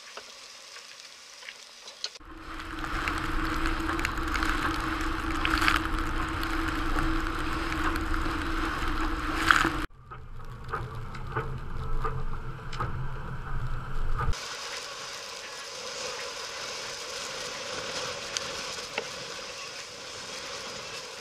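Wind buffeting the microphone and sea water rushing past a sailing yacht's hull in rough seas, with a steady low hum through the loudest stretch. The sound changes abruptly about two, ten and fourteen seconds in, ending quieter.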